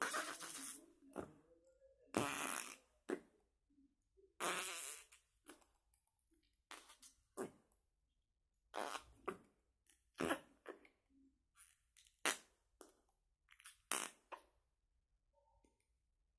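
Slime squeezed and worked between the fingers, making a string of short, irregular, fart-like squelches with brief pauses between them.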